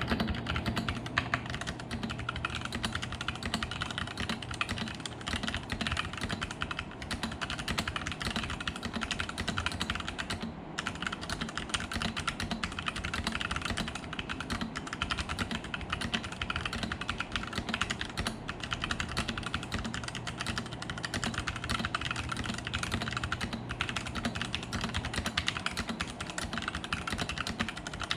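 Continuous fast typing on a Keycool 84 mechanical keyboard with Gateron Black linear switches, a dense run of keystroke clacks with one brief pause about ten seconds in.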